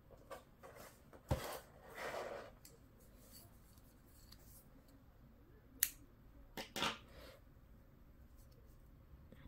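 Quiet handling sounds while crocheting with thread and a hook: two sharp clicks, one about a second in and one near the middle, among a few short soft rustles.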